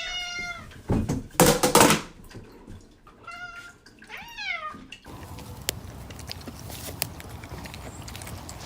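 A cat meowing three times: one call at the start and two around three to four seconds in, the last rising then falling. About a second and a half in there is a loud, noisy burst lasting under a second. After about five seconds only a steady hiss with a few faint clicks remains.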